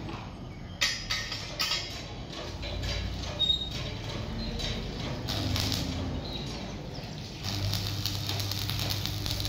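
A few sharp taps about a second in. Near the end a stick-welding arc strikes on a steel pipe and runs with a steady crackle and hiss over a low hum.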